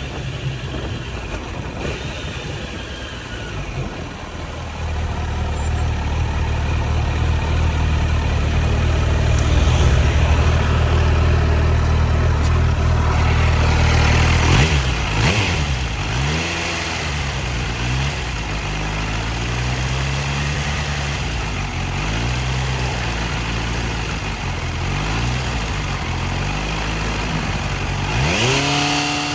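Kawasaki Z900's inline-four engine idling steadily, then revved in a series of short throttle blips, each rising and falling in pitch, from about halfway on. The owner is asking whether a ticking noise from it at 13,000 km is a problem.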